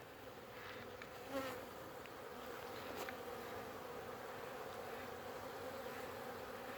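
Honey bees buzzing in flight as a steady hum, rising briefly in loudness about a second and a half in. Flying around the hive entrance like orienting bees, which the beekeeper thinks may be robbing.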